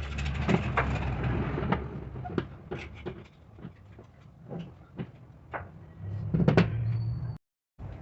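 A low mechanical hum and a hiss, with sharp metallic knocks and clicks, in the first two seconds. Scattered knocks follow, and the hum and knocks come back about six seconds in before cutting off suddenly near the end.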